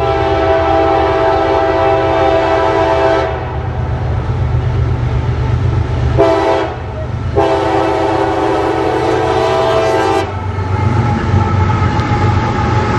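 Freight locomotive's air horn sounding for a grade crossing: a long blast, then a short one, then a final long one, the end of the long-long-short-long crossing signal. Near the end the locomotives pass close by with a low engine rumble.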